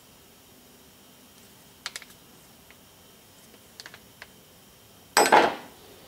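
Light clicks and a clatter as a pair of Crank Brothers clipless pedals are handled and set down on a metal tray, with a louder short thump about five seconds in.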